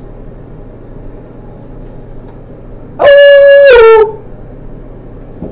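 Electric hair clippers running with a steady hum. About three seconds in, a man's voice sings out one very loud held note for about a second, its pitch falling at the end, while the clippers keep humming.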